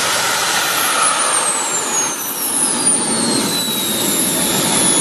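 Jet engine running: a steady loud rush with a high whine that falls in pitch over about three seconds.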